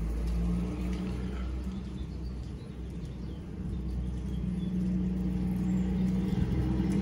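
Steady low rumble and hum of a car engine running, swelling a little from about four seconds in.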